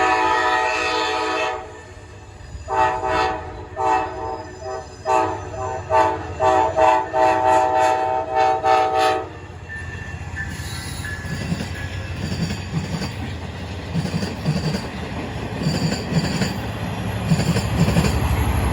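Amtrak P42DC diesel locomotive's air horn sounding a long chord, then a string of shorter and longer blasts for about seven seconds. The train then rolls past with a low diesel rumble and wheels clicking rhythmically over the rail joints, with a brief wheel squeal as the rumble begins.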